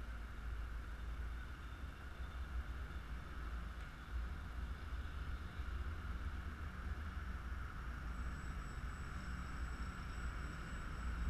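Steady low outdoor rumble with a faint even hiss above it; a faint, thin, high-pitched tone comes in about two-thirds of the way through.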